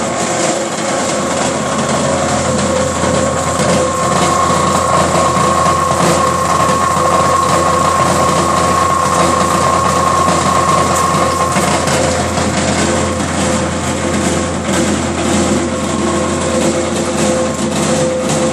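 30 kW rotary grinder (carton chipper) running loaded, shredding empty Tetra Pak and carton boxes into chips. It makes a steady, loud grinding rattle over a constant whine.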